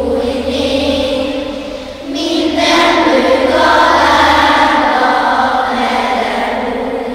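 A children's choir singing together. A new, louder and higher phrase begins about two seconds in.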